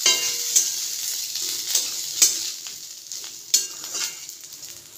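Metal spatula scraping and knocking against a steel kadhai as fried chicken pieces are tossed, with about five sharp clacks, over a hiss of hot oil sizzling. The sizzle fades as the pan cools with the gas turned off.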